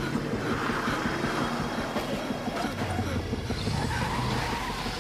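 A vehicle engine running, low and steady.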